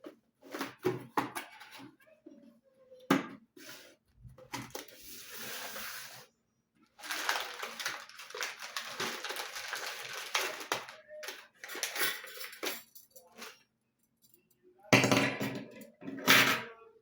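Dishes and utensils clinking and knocking, with two longer noisy stretches in the middle and two loud knocks near the end.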